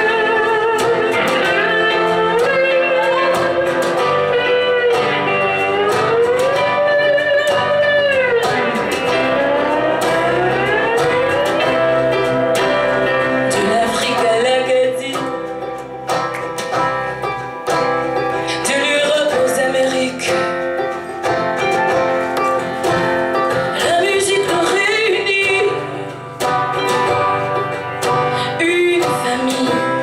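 Live band playing a song: an electric guitar leads with bending, gliding notes over bass and drums.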